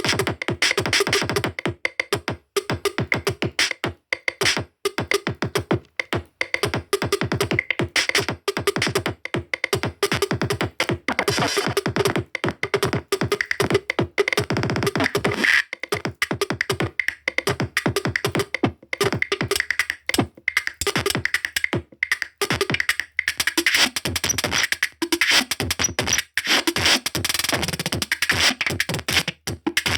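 Electronic music with a fast, choppy drum-machine beat.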